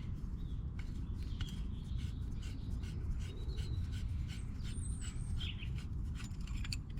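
Roller pipe cutter being turned around MDPE water pipe, giving faint scattered clicks over a steady low rumble, with a few faint high chirps, likely birds.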